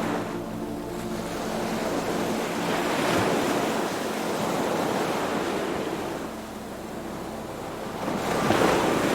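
Ocean waves washing in, swelling to a peak about three seconds in and again near the end.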